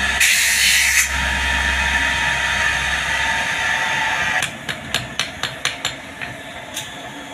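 Electric bench grinder running with a low motor hum and a grinding hiss, strongest for about a second near the start as metal is pressed to the wheel. After about four seconds it stops and a hammer strikes metal on a steel anvil block in a quick run of sharp blows, about four a second, then two slower ones.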